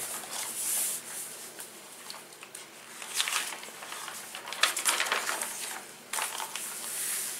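Glossy pages of a paper sticker album being turned and pressed flat by hand: several crisp paper rustles, with a sharp snap about halfway through.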